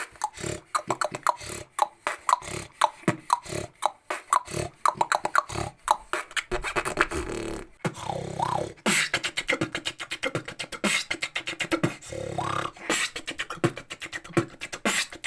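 Human beatboxing: a fast mouth-made beat of kicks, snares and clicks, twice broken by a held, rasping inhaled snore bass made by vibrating the soft palate as in snoring.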